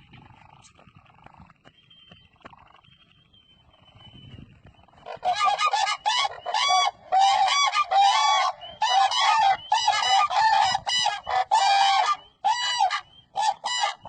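Cranes calling: after a quiet start, a loud run of short, pitched calls begins about five seconds in and repeats rapidly with brief gaps.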